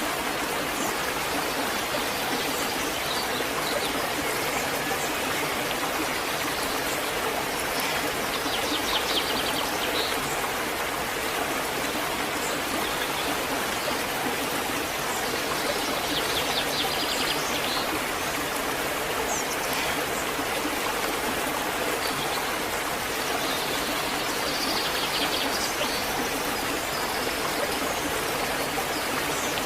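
Waterfall rushing steadily. Three short bursts of rapid high trilling, most likely birds, rise above the water about a third of the way in, past the middle, and near the end.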